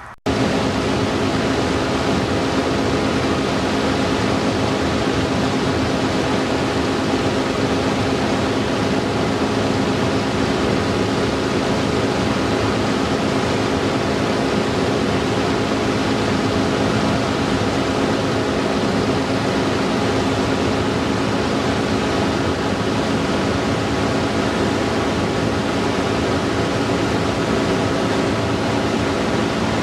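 Light aircraft in flight: the engine drones steadily under heavy wind rush on the microphone. It cuts in abruptly just after the start.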